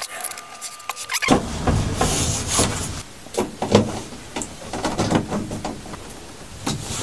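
Small hand screwdriver driving M3 countersunk screws into a 3D-printed PLA riser: scraping and clicking as the screw turns, mixed with the plastic parts being handled. It starts about a second in, after a quieter moment of light handling.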